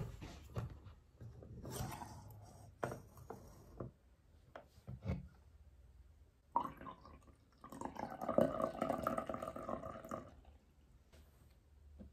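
Coffee poured from a glass French press into a ceramic cup: about four seconds of liquid splashing and filling, starting midway. Before it, light knocks and clinks as the glass-and-metal press is handled.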